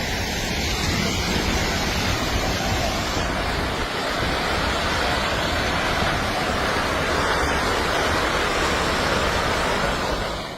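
Landslide roaring steadily, an intense continuous rush like a raging river.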